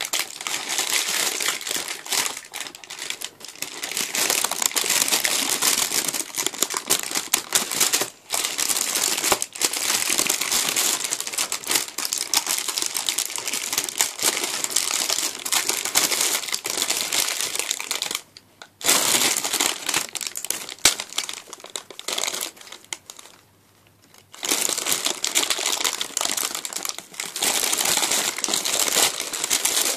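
Paper crinkling and crackling close to the microphone as it is pulled and peeled off a sticky homemade gummy sweet. It runs almost without a break, with two short pauses past the middle.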